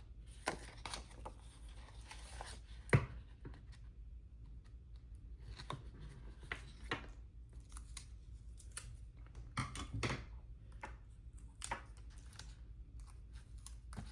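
Scissors snipping and sticker paper being handled: a scatter of short snips, clicks and rustles, with one sharp click about three seconds in.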